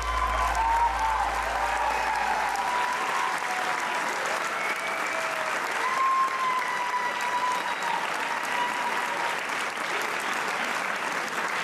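Steady applause from a crowd, with a few voices calling out over it. The low end of the preceding music fades out in the first few seconds.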